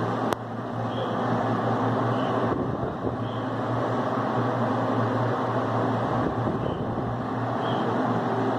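Arno Turbo Silêncio Maxx six-blade desk fan running steadily: a rush of moving air over a low motor hum, with a single sharp click about a third of a second in.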